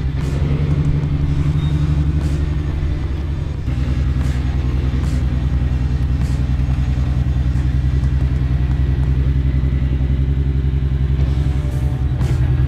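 Jeep Wrangler engine running at steady low revs, its note shifting slightly about four seconds in.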